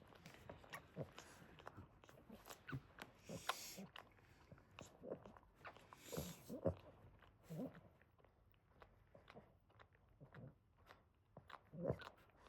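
Boston terrier dam licking her newborn puppies: soft, irregular wet licking and smacking, with a few short, low whimpering sounds from the dogs.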